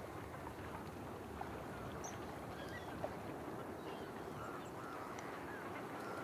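Distant fowl calling: scattered short, faint calls over a steady low rumble and hiss.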